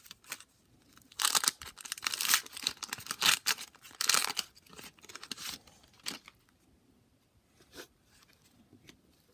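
A 1989 Donruss baseball card wax pack being torn open, its wax-paper wrapper tearing and crinkling in a series of quick bursts over about four seconds, followed by a few light ticks as the cards are handled.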